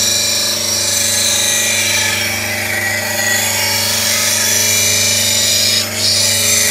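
8-inch bench grinder running steadily at about 1400 rpm with its motor humming, while a steel bowl gouge is ground on its CBN wheel, giving a constant high grinding hiss. The hiss dips briefly near the end.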